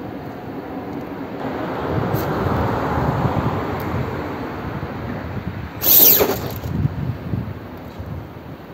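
RC4WD Bully II MOA rock crawler's electric motor and drivetrain straining under load as it works up a boulder. About six seconds in there is a sudden loud crash followed by a few knocks as the truck tumbles off the rock onto the stones below.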